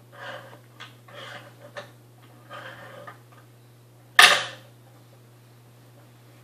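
Wooden toy push walker being handled by a baby: the wooden handle rattles and knocks against the box a few times, then one loud, sharp wooden clack about four seconds in.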